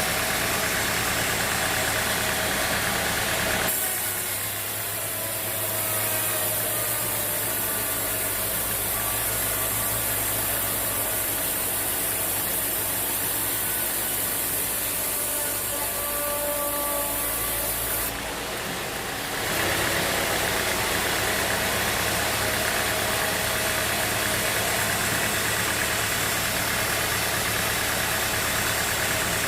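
Sawmill engine running steadily. Its sound changes abruptly about four seconds in, taking on faint steady whining tones, and switches back about twenty seconds in.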